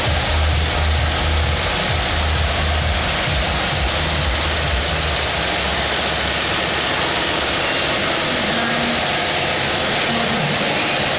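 Embroidery machine running: a steady mechanical clatter, with a pulsing low rumble in the first half that fades out.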